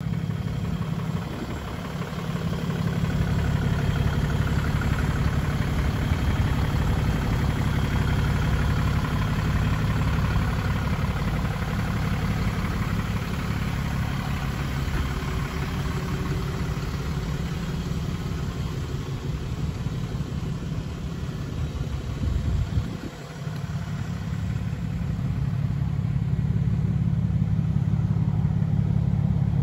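Cummins 6.7-litre inline-six turbo diesel of a Ram 5500 tow truck idling steadily with a low, even hum. The sound drops briefly about three-quarters of the way through.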